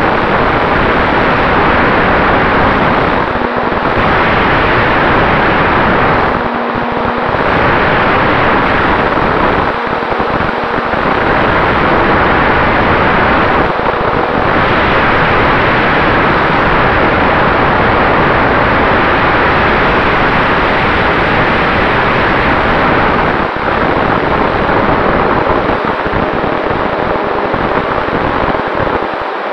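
Propeller and wind noise from a radio-controlled model Cessna 188 in flight, heard by a camera on its nose: a loud, steady rush with a faint steady tone, easing briefly several times.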